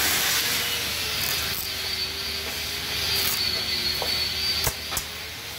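Pliers pulling old staples out of a wooden sofa frame: two sharp clicks close together near the end. A steady hiss with a faint wavering whine runs underneath.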